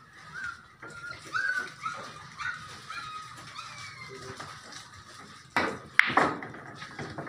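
A dog whimpering in a run of short, high yelps, about two a second, for the first few seconds. Near the end, a pool cue strikes the cue ball with a sharp clack, and a louder clack of billiard balls colliding follows about half a second later.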